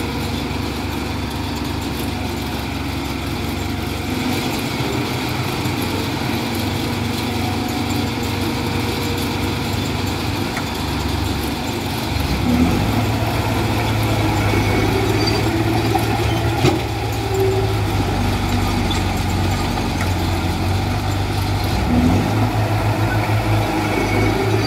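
Diesel engine of heavy earthmoving machinery running steadily, louder from about halfway through.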